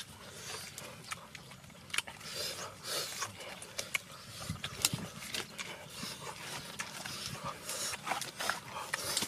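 Close-up eating sounds: wet chewing and smacking, with short crackles and clicks as roasted pork is torn apart by hand.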